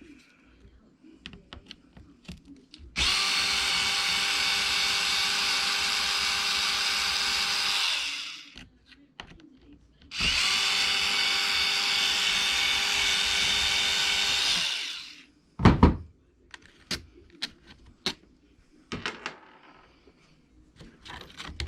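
A cordless power driver runs twice, about five seconds each time, with a steady whine as it backs out screws on an RC truck's chassis. After that come light clicks and one sharp knock from handling small parts.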